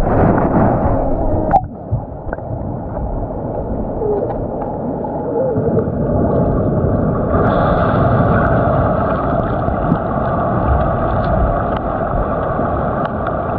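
Muffled underwater water noise picked up by a submerged camera: a steady low rumble and hiss, with a sharp click about a second and a half in and a brighter hiss from about halfway through.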